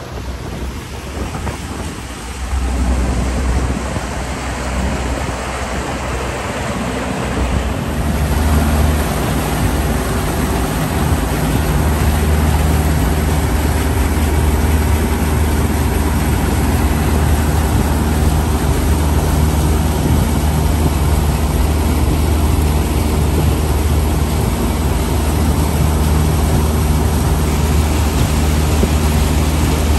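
Boat motor running under way, a steady low drone with rushing wind and water over it; it gets louder about two seconds in and again around eight seconds in as the boat picks up speed.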